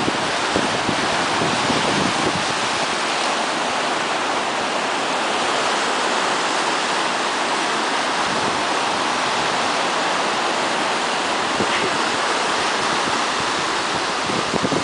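Sea surf breaking and washing over shoreline rocks: a steady rush of foaming water.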